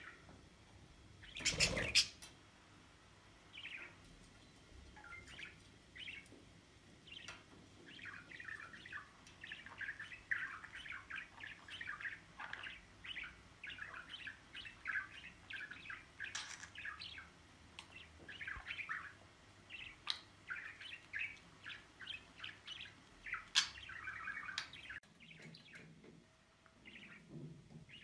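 Budgerigar chattering: a dense run of soft, quick chirps and warbles from about eight seconds in until near the end. About a second and a half in there is a brief, loud rustling bump.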